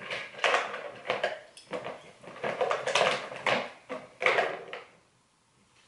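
Hands rummaging among small used nail-product containers and tools, which clatter and rustle against each other in irregular knocks. The sound stops about a second before the end.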